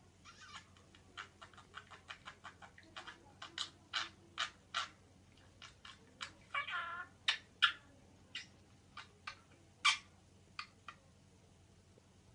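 Budgerigar chattering: a run of short, sharp chirps and clicks, with one longer, drawn-out call about halfway through.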